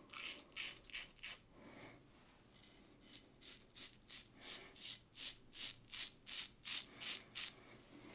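Merkur 37C slant safety razor with a Derby blade scraping through lathered stubble in short strokes. There are a few strokes, a short pause, then a steady run of about three strokes a second, the short passes used on a longer-than-usual beard.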